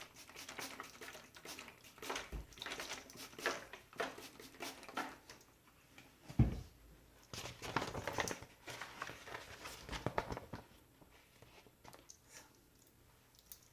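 Close-miked handling of small objects: irregular clicks, light tapping and rustling, with a single heavier thump about six and a half seconds in. The sounds thin out near the end.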